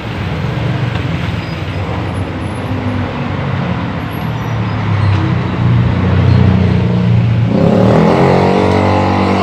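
An engine running, with a steady low hum that grows louder and takes on a clear droning pitch about seven and a half seconds in.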